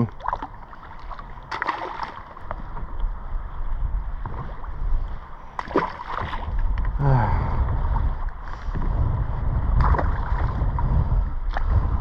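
Wind rumbling on the microphone and water lapping around a fishing kayak in choppy sea, growing stronger in the second half, with a few sharp knocks from gear on the kayak.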